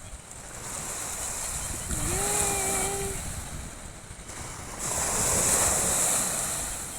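Wind gusting on the microphone over the wash of lake water, swelling louder twice, about two seconds in and again about five seconds in.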